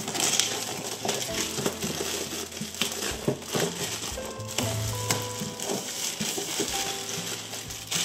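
Cardboard box packaging rustling and crinkling as it is opened and unpacked by hand, with many small clicks and taps, over soft background music.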